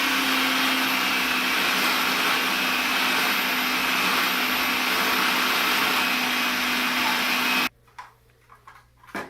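Food processor motor running steadily, blending hummus as olive oil is drizzled in to loosen it. It cuts off suddenly near the end, followed by a few light knocks and one sharp knock.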